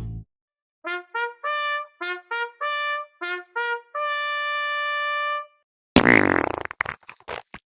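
A short comic musical sting: a run of quick, separate horn-like notes ending in one long held note. About six seconds in comes a loud noisy burst broken by a few sharp cracks.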